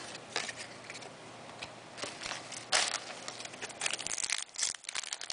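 Cardboard trading cards being handled with light clicks, then a card pack's wrapper crinkling loudly from a little under three seconds in.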